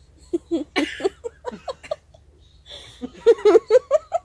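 A person laughing in two bursts of short, repeated voiced pulses; the second burst, about three seconds in, is louder.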